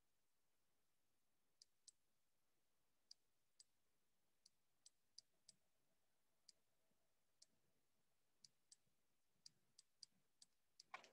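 Faint, irregular clicks of pen strokes being written on a screen, about eighteen in all, with a louder click near the end, over near silence.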